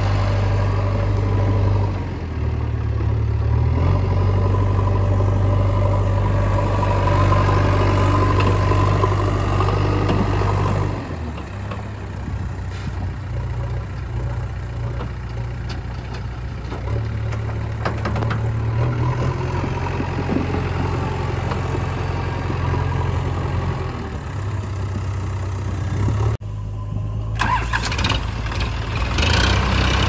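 Diesel engines of a JCB 3DX backhoe loader and tractors running, the engine note stepping up and down as the machines work. Near the end the sound cuts out abruptly for a moment, then resumes.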